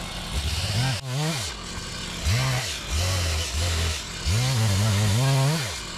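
New chainsaw's engine running and being revved, its pitch climbing and dropping back several times with short steadier stretches in between, as the saw is tried out.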